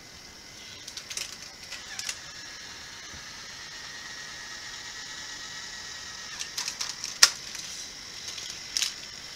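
Small motor of a Hot Wheels track set's lift tower whirring steadily, a high whine, as it carries a toy car up, with sharp plastic clicks and clacks of the car and track, the loudest about seven seconds in.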